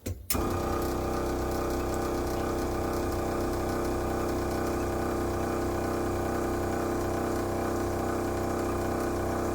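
Truck's electric air pump (air compressor) switching on suddenly and running steadily with an even hum.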